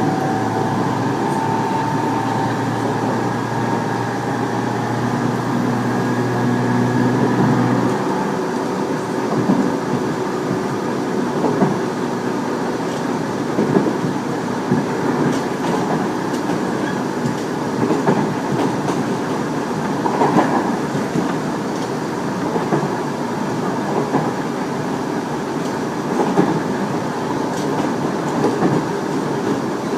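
Tobu 30000 series electric train running at speed, a set the recordist believes has permanent-magnet synchronous motors. Steady motor tones stop about eight seconds in, and the train runs on with its wheels clacking over rail joints.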